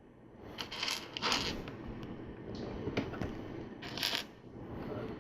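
Plastic LEGO pieces clicking and rattling as they are handled, with short clatters about a second in and near the end, and a single sharp click in between.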